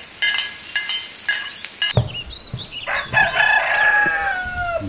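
Rooster crowing once: a long call that falls in pitch at the end, after a few short clucks. A sharp knock comes about two seconds in.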